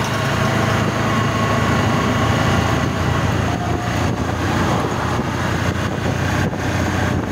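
Steady engine and road noise heard from inside the cabin of a moving vehicle cruising on a highway, a low hum with an even rush of tyre and wind noise over it.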